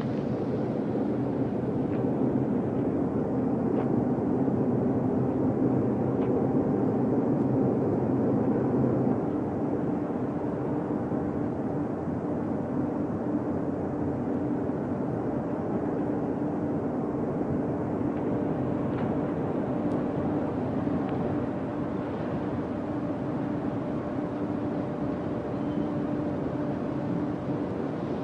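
Steady rumble of a car's engine and road noise heard from inside the moving car, with a low hum running through it, a little louder for the first nine seconds or so.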